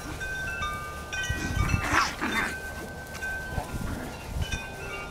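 Chimes ringing: several clear tones at different pitches, each sustained and overlapping the next. Two short noisy sounds come about two seconds in.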